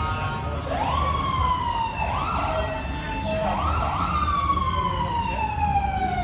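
A siren sounding: its wail rises sharply three times, then slowly falls away in one long downward glide.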